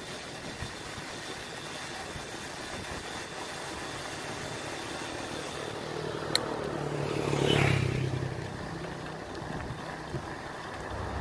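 A motorcycle approaches and passes close by, its engine swelling to a peak about halfway through and then fading away. Under it, steady wind and road noise from a bicycle rolling along.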